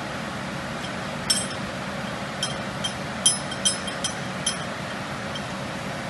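Metal spanner and brass fittings clinking against the valve of an R744 (CO2) refrigerant cylinder as the filling set is unscrewed from it: about seven short, ringing clinks between one and five seconds in, over a steady hum.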